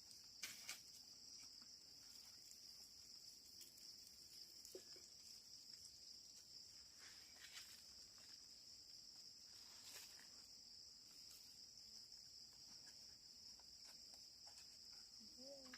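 Faint, steady, high-pitched chirring of insects in a field, with a few soft clicks and a brief pitched call near the end.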